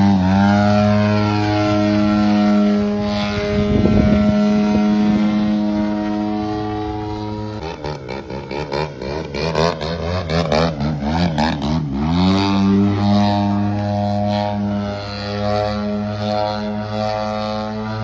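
Radio-controlled aerobatic plane's engine and propeller running, the pitch rising near the start, easing off about eight seconds in, wavering as the plane manoeuvres, and opening up again about twelve seconds in to a steady high pitch.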